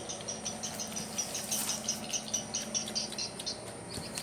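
Crickets chirping in quick, even pulses, about four or five a second, over a faint steady low hum.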